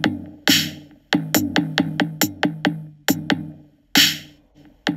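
Background electronic music with a drum-machine beat: quick, evenly spaced drum hits over a steady bass, with a louder splashy hit about half a second in and another at about four seconds.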